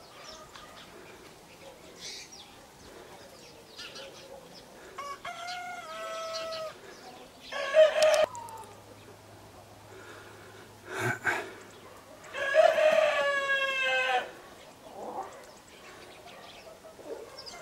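Roosters crowing several times, the longest and loudest crow near the end, over hens clucking in the flock. A single sharp knock sounds between the crows.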